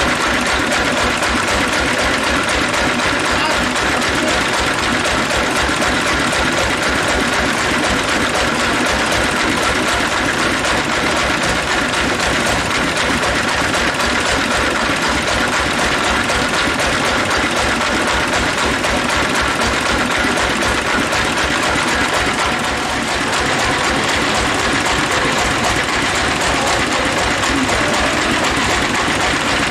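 Sawmill band saw machinery running steadily and loudly, with a rapid, even beat underneath.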